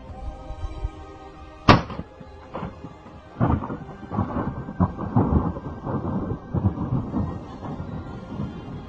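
A balloon popping inside a huge enclosed space at a nuclear power plant: one sharp crack, then a long train of echoes that rolls on for several seconds before fading. Faint background music runs underneath.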